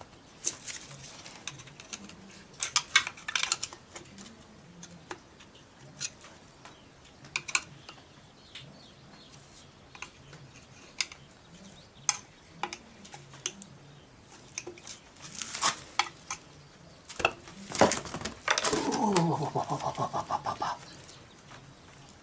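Scattered metal clicks and clinks of hands and tools working parts loose on a motorcycle engine's side cover, over a plastic catch tub. A longer rattle near the end falls in pitch as it winds down.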